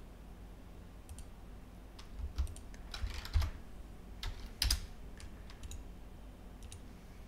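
Computer mouse and keyboard clicks, scattered, with two louder bunches of clicks about three and four and a half seconds in.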